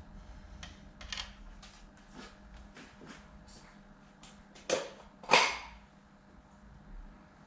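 Tools and parts being handled during an oil filter change: a run of light clicks and taps, then two louder sharp knocks close together about five seconds in, over a faint steady hum.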